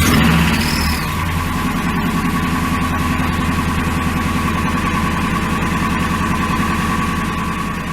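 Ford 5.4-litre two-valve V8 idling just after a true cold start, with a rapid, even knocking from the cylinders: cold piston slap in a high-mileage engine. The revs settle slightly about a second in.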